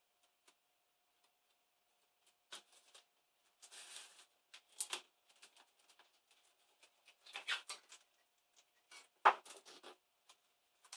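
Hands pressing a laptop keyboard down onto its metal top-case plate to seat it on adhesive tape, giving scattered soft clicks, taps and rustles of keys and plastic, with a sharper knock about nine seconds in.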